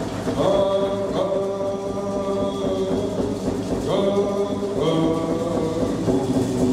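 Group of singers chanting a Kwakwaka'wakw ceremonial dance song in long held notes. Each new phrase starts on a rising slide, several times.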